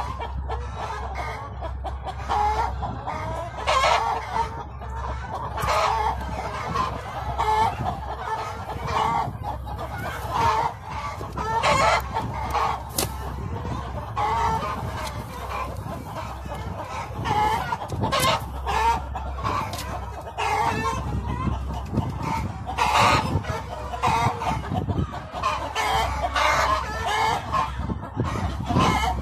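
Layer hens clucking, with short calls coming every second or so all through, over a steady low hum.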